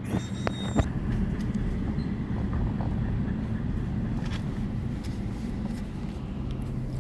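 Car driving up a dirt road, heard from inside the cabin: a steady rumble of tyres on the gravel surface with the engine underneath. A short high squeak sounds in the first second.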